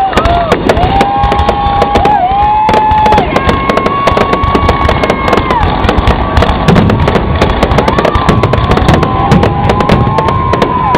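Fireworks going off: dense, rapid crackling and popping, with several long whistles each held near one pitch for a second or two before dipping away.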